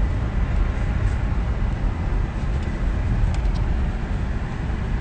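Cadillac Escalade driving over rough desert dirt, heard from inside the cabin: a steady low rumble of engine and tyre and road noise.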